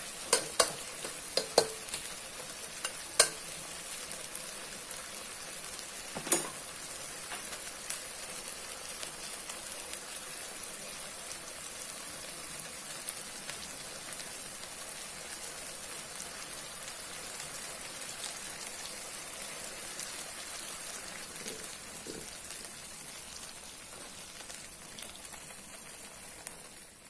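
Duck and chicken pieces sizzling in sauce in a wok, with a spatula knocking against the wok several times in the first couple of seconds and once or twice more a few seconds later. After that comes steady sizzling.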